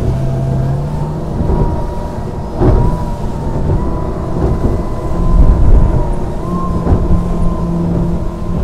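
Iron Boats 767's 300 hp outboard running at speed, a steady engine drone under a heavy rush of wind and water, with a sharp thump about three seconds in.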